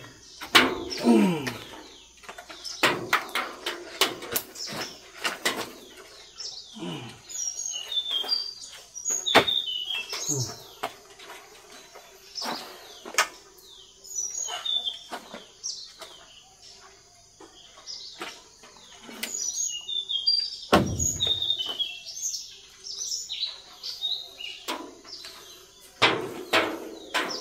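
Small birds chirping, short high falling calls repeating again and again, over scattered knocks and clatters as a wooden slatted crate is lifted and moved, with one heavier thump about two-thirds of the way through.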